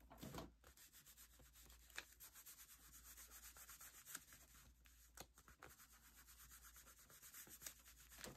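Faint rubbing of fingers over paper, quick repeated strokes as a glued paper cut-out is smoothed down onto a journal page, with a few light ticks.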